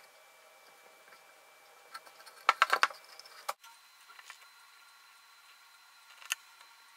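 Hands handling a clay mask and paintbrush on a tabletop: a quick run of small clicks and knocks about two and a half seconds in, and one more click near the end, over a faint steady hum.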